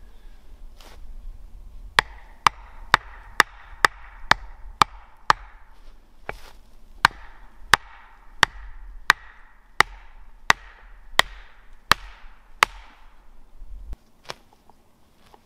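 A wooden stake being pounded into the ground with a hand tool, struck on its top. About eight quick blows come first, then after a short pause about ten slower, evenly spaced blows. Each blow is a sharp knock with a short ring.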